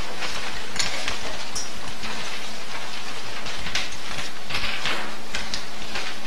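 A classroom of students writing: many pens scratching on paper and pages rustling, an irregular patter of small sounds over a steady low hum.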